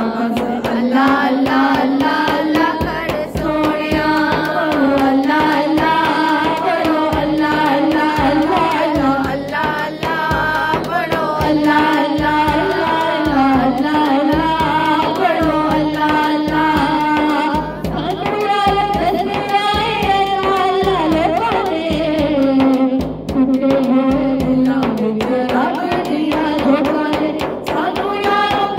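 A Punjabi naat, a devotional song in praise of the Prophet, sung as one melodic vocal line over a steady percussion beat.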